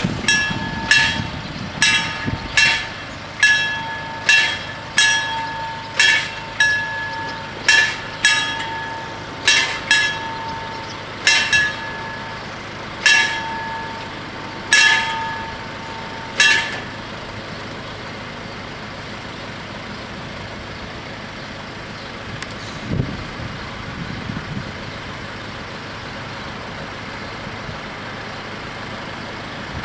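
Level-crossing warning bells striking over and over with a clear ringing tone, about once every 0.7 seconds at first, then spacing out and stopping about 17 seconds in. This is the warning for an approaching train while the barriers come down. Under and after the bells there is a steady low engine noise from road vehicles, with a brief low rumble near the end.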